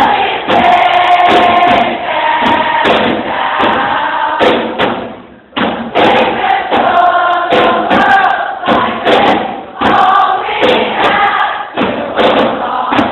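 Live rock band playing loudly, with the crowd singing along, heard from among the audience. The music falls away briefly about five seconds in, then comes back suddenly.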